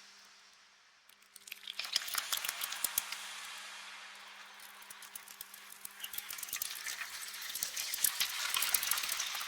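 A swarm of bats fluttering and squeaking: a dense crackle of high chirps and wingbeats that dies away almost to nothing about a second in, swells again a moment later, and builds once more near the end, over a faint steady low hum.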